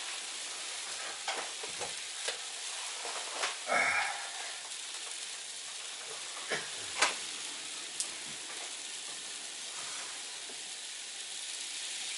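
Steady hiss of freezing rain and snow hitting the trailer roof, with a few light clicks and knocks scattered through it.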